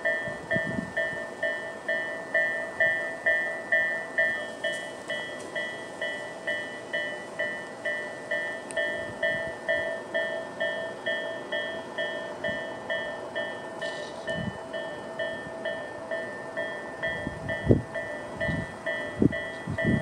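Japanese level-crossing warning bells (Tobu 'sound A' electronic bells) ringing steadily at about two strokes a second, warning that a train is approaching. A few low thumps near the end.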